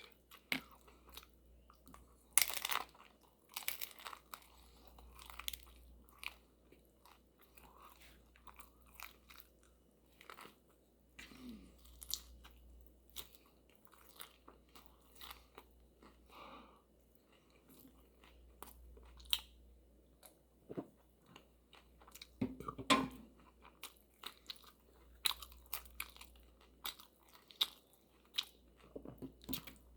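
A person chewing and crunching crisp food, its mouth close to the microphone: irregular crunches and chewing clicks, with a loud bite about two seconds in and another a little past the twenty-second mark.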